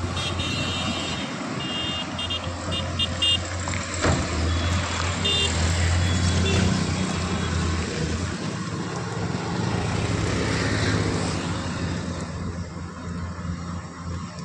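Heavy diesel earthmoving machinery running steadily, mixed with passing road traffic. A vehicle horn beeps in several short bursts during the first few seconds.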